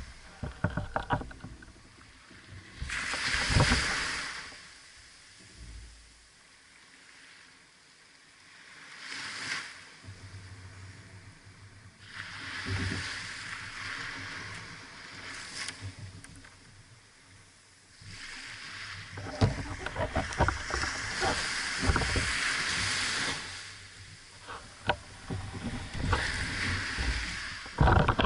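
Small waves washing up the sand and around a beached sailing dinghy's hull, rushing in and draining back in surges a few seconds apart, with scattered clicks and knocks.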